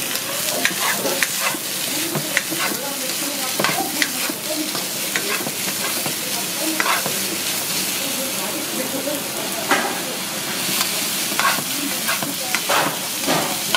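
Hagfish pieces, onion and bell peppers sizzling in a nonstick wok while being stirred and tossed with a spatula, with irregular scrapes and knocks of the spatula against the pan over a steady frying hiss.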